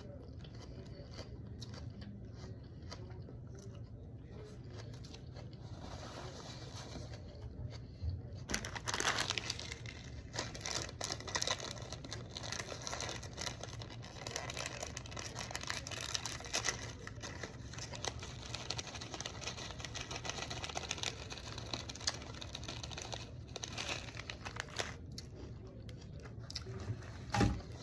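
Eating close to the microphone: chewing and crunching a salad topped with crisp fried bell pepper strips, with many small crisp crackles and clicks. It grows busier from about eight seconds in. There is one dull thump near the end.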